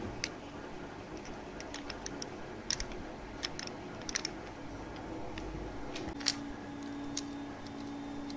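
Scattered light clicks and ticks of small plastic and metal parts being handled while wiring push buttons, over a faint steady background. A steady low hum joins about six seconds in.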